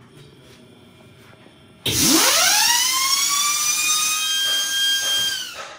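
Audi RS3 turbocharger core assembly spun up in a low-speed balancing machine. About two seconds in, a loud whine starts over a strong hiss and climbs quickly in pitch. It then holds steady at a high pitch and dies away just before the end.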